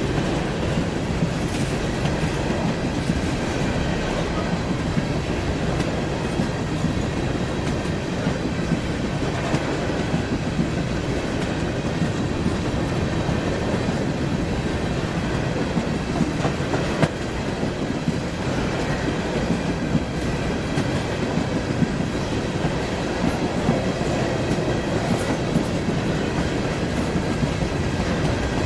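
Norfolk Southern freight train of covered hopper cars rolling past at steady speed: the continuous rumble and clatter of steel wheels on the rails, with one sharper knock just past the middle.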